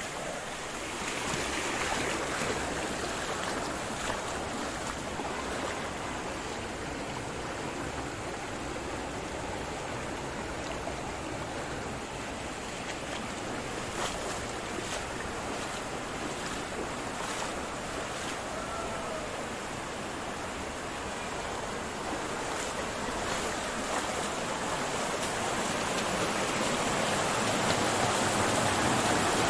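Rushing water of a small mountain stream, a steady wash that grows louder over the last few seconds.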